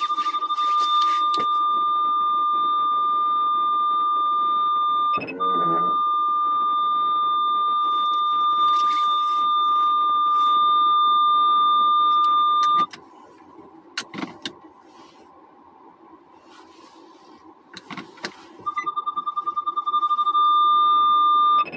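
An electronic warning tone sounds as one steady high beep. It cuts off about two-thirds of the way in, then comes back near the end as fast beeps that quicken into a steady tone again. During the gap there are a couple of knocks.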